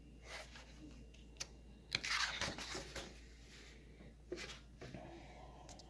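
Pages of a large, heavy hardcover book being turned by hand: paper rustling and swishing in a few short strokes, the loudest and longest about two seconds in.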